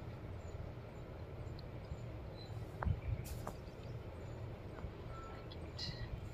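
Steady low outdoor rumble with a few faint knocks about three seconds in and a brief high chirp near the end.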